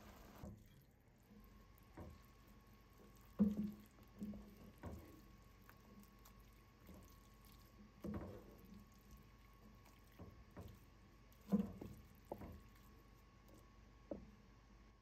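Thick chickpea curry simmering in a pan, with bubbles bursting now and then in soft plops a few seconds apart.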